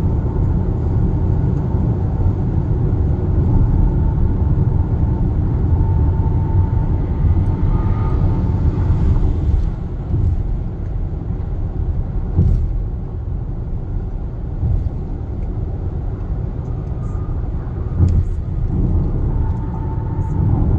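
Steady road and tyre rumble heard inside the cabin of a Kia Sportage NQ5 cruising at about 95 km/h on an expressway. The rumble is lighter for a stretch from about halfway, where the road turns from concrete to asphalt, and there are a couple of single knocks.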